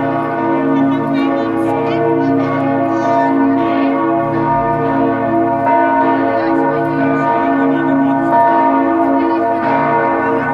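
Several church bells of the Stiftskirche ringing together in a full peal. The strikes overlap into a continuous, dense ringing with long-sustained tones and no pause.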